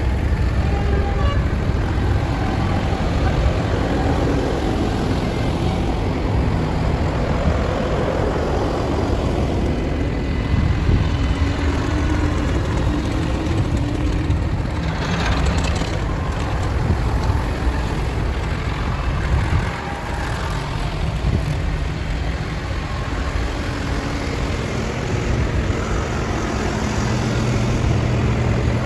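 Tractor engines running steadily as tractors drive along the road, a continuous low engine rumble.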